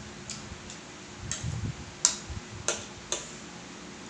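Metal fork clicking against a plate as food is picked up: about six short, sharp ticks at uneven intervals, the loudest about two seconds in.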